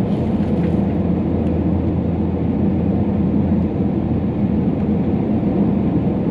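Steady, deep cabin rumble of an Airbus A320neo in flight on its approach to land, heard from a seat by the wing: engine and airflow noise, even throughout.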